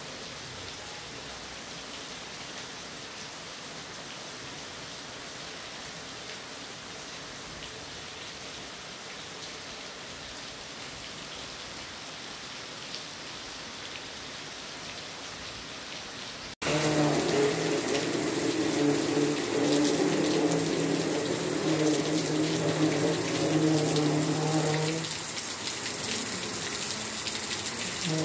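Steady rain falling and dripping off the tiled roof edge of a veranda. About halfway through it cuts to the louder rush of a flooded river, with a steady low hum over it that stops a few seconds before the end and comes back.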